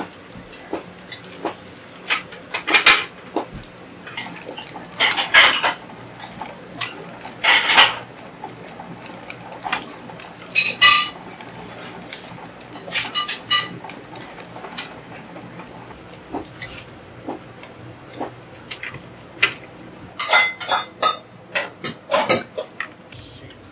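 Metal kitchen utensils clinking and knocking against pans and dishes in irregular, scattered strokes, a few ringing briefly.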